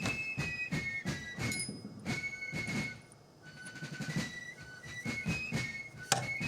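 Background music: a high, whistle-like melody of held notes that step up and down, over a steady beat of about three pulses a second.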